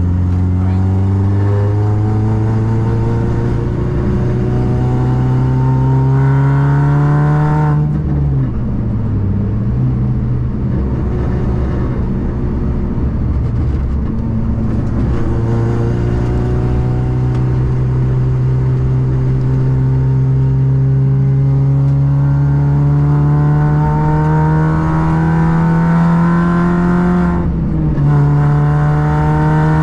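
A car engine under load, its pitch climbing steadily in long pulls. It drops off sharply about eight seconds in, climbs again in a long pull from about halfway through, drops once more near the end, then starts rising again.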